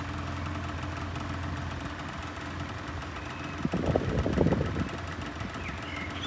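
An engine idling steadily with a low hum, and a short burst of clattering knocks about four seconds in.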